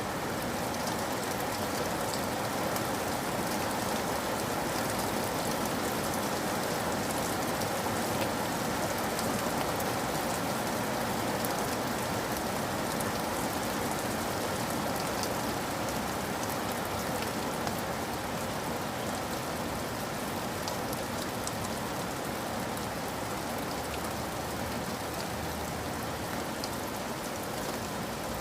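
Steady rain falling: a dense, even hiss with many scattered taps of single drops.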